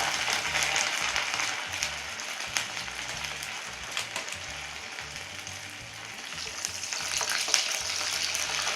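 Fishballs and kikiam deep-frying in hot oil in a wok: steady sizzling with many small crackles and pops, easing a little midway and growing again near the end.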